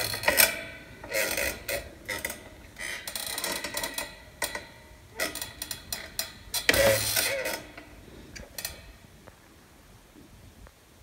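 Handling noise: irregular clicking, scraping and rubbing in bursts, dying away about nine seconds in.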